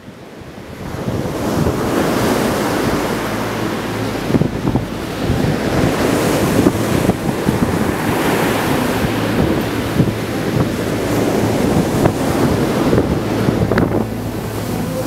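Ocean surf washing and breaking on a sandy beach, with wind. It fades in over the first two seconds.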